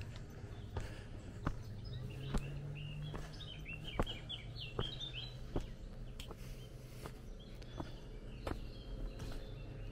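Footsteps on a dirt forest path, about one step every three-quarters of a second, with a songbird singing a quick run of chirping notes a few seconds in.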